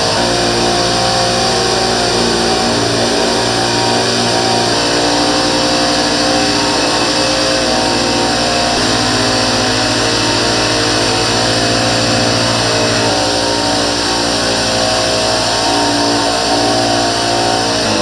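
Small petrol engine of a backpack power sprayer running steadily at high speed while it drives the pump that mists disinfectant. Its pitch steps to a new level a few times.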